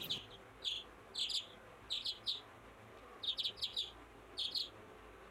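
Newly hatched Kadaknath (black chicken) chicks peeping: short, high chirps in little clusters of two to four, coming every half second to a second.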